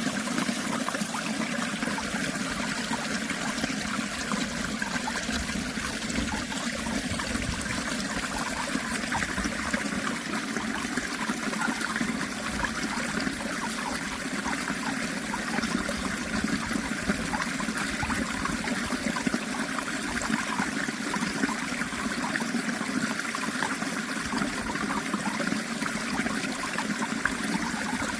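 Steady running water of a stream, flowing and trickling without break.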